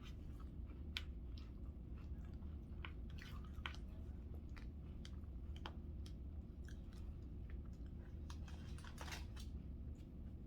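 Scattered small clicks and crunches of Ritz crackers and chicken salad being handled and arranged, over a steady low hum.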